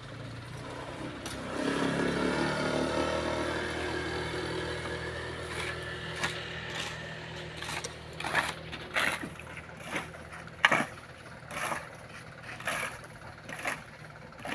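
Loaded dump truck's engine running, its pitch rising briefly about two seconds in. From about six seconds in come repeated sharp scraping strokes, roughly two a second: loose oil palm fruitlets being scraped up off the gravel road.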